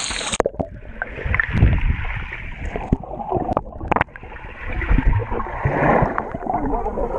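Muffled swimming-pool water heard underwater, after the microphone goes under about half a second in: gurgling, bubbling and low thumps of a swimmer moving close by, with a few sharp clicks.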